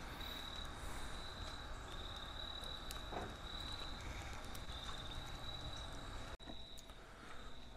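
A wood fire burning, with a few faint sharp crackles and pops, under a high, steady insect trill that comes in repeated pulses.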